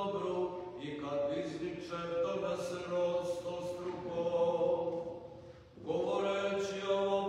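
Orthodox liturgical chant: long held, slowly moving sung notes over a steady low sustained tone. There is a brief pause for breath about five and a half seconds in, then the chant resumes.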